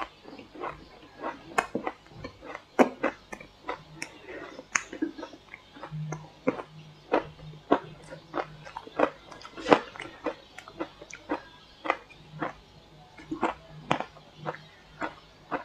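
Close-up crunching of crunchy shaved ice dusted with matcha powder as it is bitten and chewed: a quick, irregular run of sharp crunches, about two or three a second.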